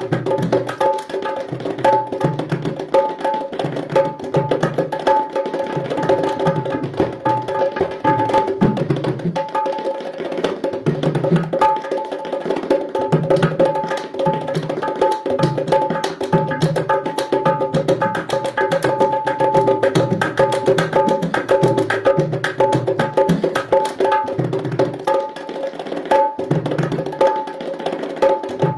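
Punjabi dhol ringtone music: a fast drum rhythm of low thumps and rapid sharp clicks over held melodic notes, playing without a break.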